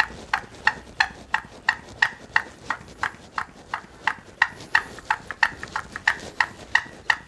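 Hand pump on a BRS-8 multi-fuel stove's petrol bottle worked in quick, even strokes, about three a second, building pressure in the fuel bottle before lighting.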